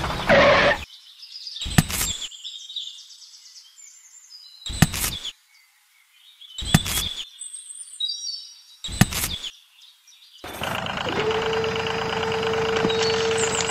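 Edited sound effects: four short hits a few seconds apart over faint high chirping, then, about ten seconds in, a steady engine-like drone with a held humming tone begins.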